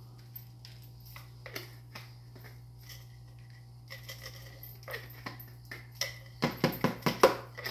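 A seasoning shaker bottle shaken over a bowl of raw chicken drumsticks: scattered light clicks and taps, then a quick run of loud rattling shakes near the end, over a steady low hum.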